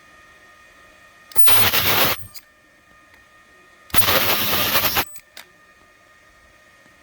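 Ultrasonic plastic welder firing two weld cycles, each a loud harsh buzz of about a second. The ultrasonic output overloads the microphone, so it is heard as distorted noise, with a few light clicks between the cycles.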